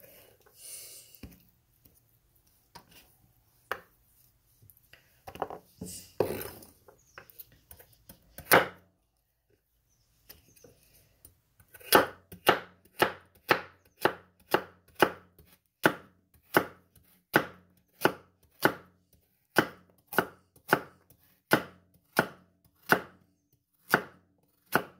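Kitchen knife slicing carrots on a cutting board: a few scattered knocks at first, then, about halfway through, a steady rhythm of chopping strokes at roughly one and a half a second.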